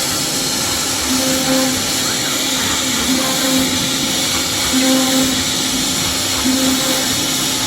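CNC router cutting MDF: a steady, hissing spindle-and-cutting noise, with a low hum that comes and goes every second or so as the machine moves.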